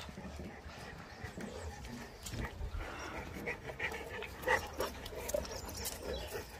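A Dogue de Bordeaux panting while it mouths and chews a fabric pig toy, with scattered short soft knocks and rustles.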